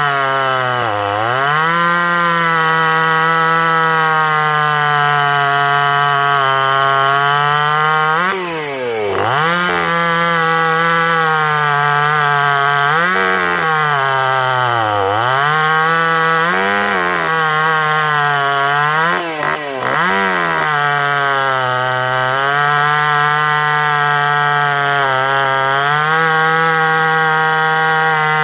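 Ported Jonsered 2036 two-stroke chainsaw at full throttle cutting through a log, its engine pitch sagging several times under the load of the cut and climbing back. The saw is tuned a bit rich, with the carburettor not yet fine-tuned after the porting work.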